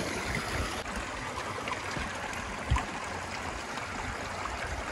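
Shallow mountain stream running steadily over stones, with a brief thump a little past halfway.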